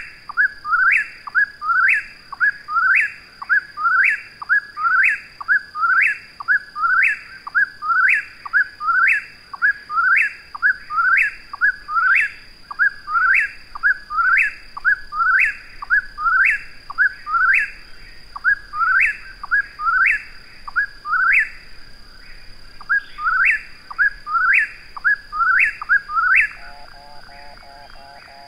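Eastern whip-poor-will singing its rhythmic 'whip-poor-will' phrase over and over, each phrase ending in a sharp upward sweep, with hardly a pause between repeats. The song stops about two seconds before the end.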